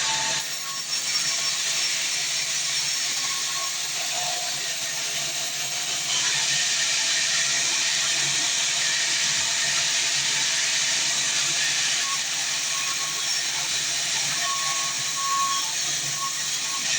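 Sawmill saw cutting through a fresh mahogany log: a steady, loud, high hissing saw noise, a little louder from about six seconds in.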